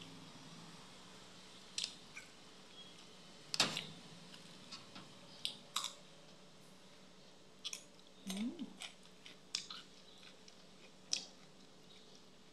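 A person eating close to the microphone: chewing and biting into raw vegetables and sour fermented fish, heard as scattered sharp, irregular crunches, clicks and lip smacks.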